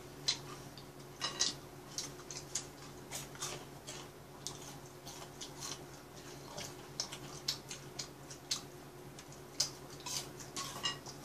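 Eating sounds: a scatter of sharp, irregular clicks and crunches from chewing fried chicken gizzards and picking them up with chopsticks off plates, over a steady low hum.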